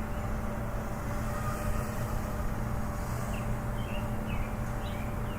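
Steady low background rumble with a constant hum, and a few short high chirps scattered through.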